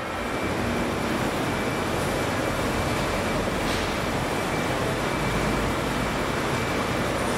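Steady noise of car engines running as cars move out, with no single car passing by clearly.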